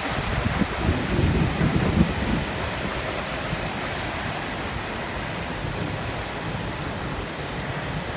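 Heavy rain falling steadily, with a low rumble during the first couple of seconds.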